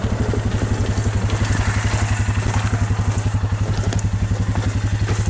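A small engine running steadily, with a fast, even pulsing.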